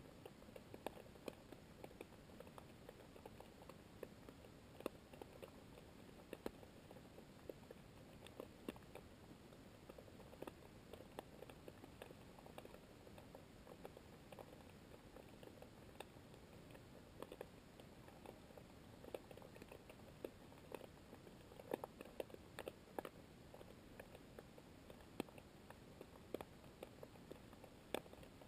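Faint underwater ambience in coastal sea: a low hiss with irregular crackling clicks, several a second, growing denser and louder about three quarters of the way through.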